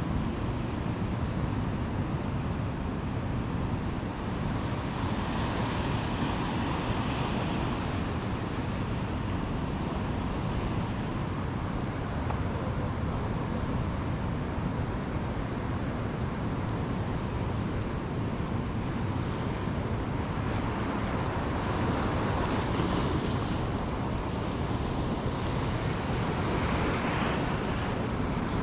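Steady rushing of wind on a phone microphone mixed with surf, swelling a little twice.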